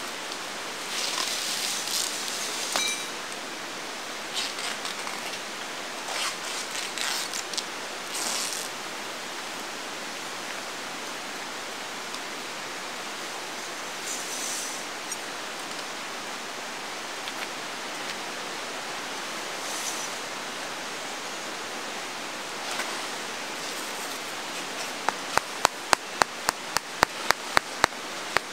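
Steady rush of a river running through the background. Short bursts of rustling and scraping from tent stakes and guy lines being set, and near the end a quick run of about a dozen sharp clicks, three or four a second.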